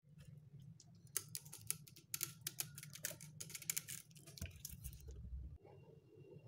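Faint quick run of light clicks and taps from a plastic bottle and jar lids being handled on a tabletop, over a low steady hum; the clicking stops about five seconds in.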